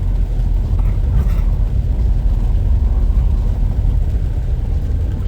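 Steady low rumble of a vehicle on the move, with a faint hiss above it.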